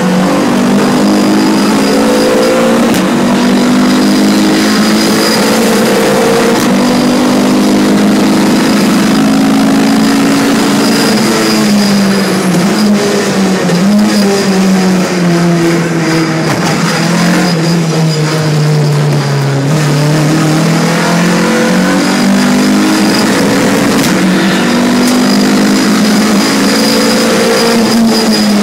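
Tuned Renault Clio's engine driven hard on a race track, heard loud from inside the cabin, its revs climbing and falling again and again through gear changes and corners. About halfway through the revs sink low for several seconds, then climb again.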